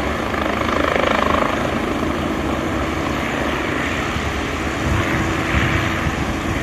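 Agusta A109E Power twin-turbine helicopter taxiing on the ground with its rotors turning: a steady turbine and rotor noise that swells about a second in and again near the end.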